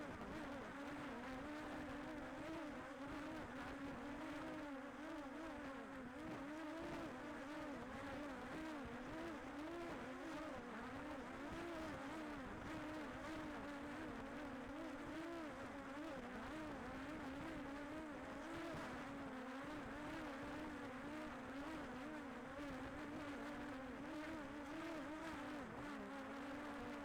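Quadcopter drone propellers humming steadily, the pitch wavering up and down as the motors adjust.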